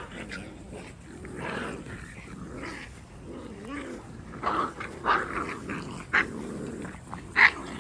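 Rottweiler puppies play-fighting, growling, with several short sharp yips in the second half, the loudest near the end.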